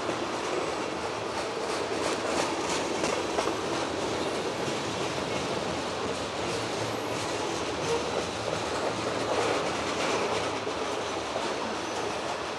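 Freight train cars rolling past close by: a steady rumbling clatter of steel wheels on rail, with repeated clacks as the wheels cross the rail joints.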